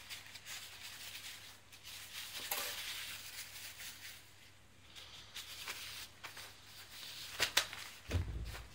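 Blue paper towels being handled, crumpled and rustled on a tabletop. Near the end there is a sharp click, then a dull thump as things are set down on the table.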